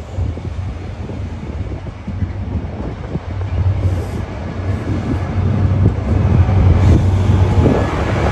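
Great Western HST (Class 43 power car) diesel engine running with a steady low hum, plus the rumble of coaches moving along the platform. It grows louder over the last few seconds as the power car comes past.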